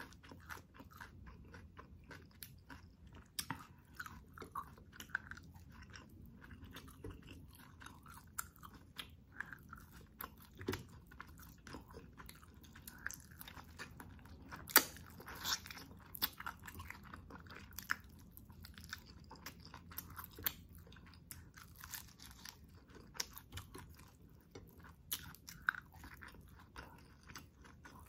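Close-up chewing and biting of chicken adobo and rice eaten by hand, with irregular sharp wet mouth clicks and smacks; the loudest click comes about halfway through.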